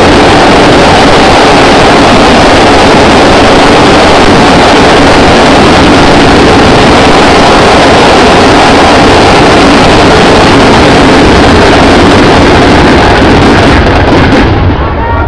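Loud, steady rushing noise with a low rumble, close to overloading the recording, that thins out near the end.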